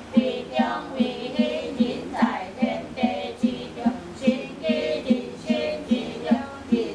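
Women chanting a scripture in unison, mostly female voices, kept in time by a large temple wooden fish (muyu) struck with a wooden mallet at a steady beat of about two and a half knocks a second.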